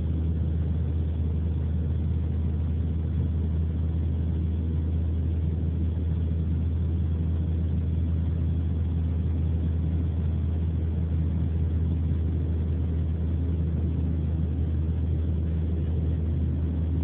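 Steady low rumble of engine and road noise inside a car's cabin, unchanging throughout.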